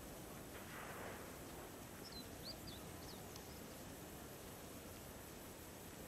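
Faint outdoor background noise, with a few short high-pitched bird chirps about two to three seconds in.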